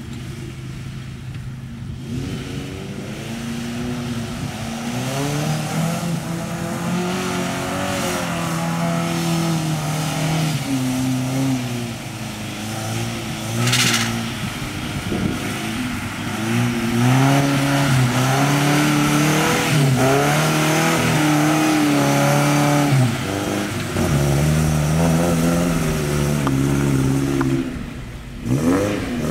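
1994 Toyota pickup truck engine revving hard in repeated surges, its pitch climbing and dropping as it churns through mud, over a steady hiss of tyres and mud. There is a short burst of hiss about fourteen seconds in, and the engine gets louder in the second half.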